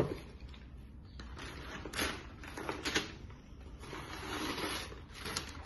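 Crinkly paper stuffing and packaging being handled and pulled out of a new handbag, with a few sharp clicks and knocks, the loudest at the start and two more about two and three seconds in.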